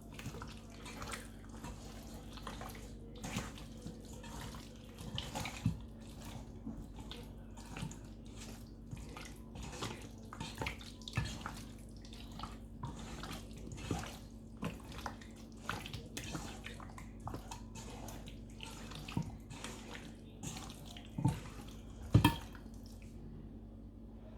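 Chicken drumsticks being mixed in a wet yogurt and spice marinade: irregular wet squelching and clicking, with a couple of louder knocks about 21 to 22 seconds in.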